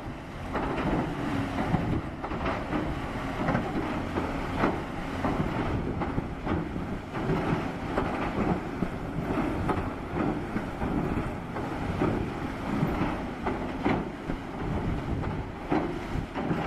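Heavy machinery running with a steady low rumble and frequent clanking and knocking throughout.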